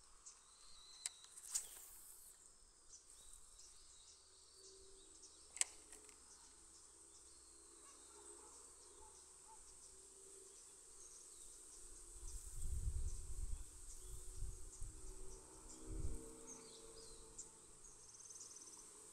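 Steady chorus of autumn insects chirping in the background. Two sharp clicks sound a few seconds apart in the first third, and a low rumble, like wind or handling on the microphone, rises for a few seconds about two-thirds of the way through.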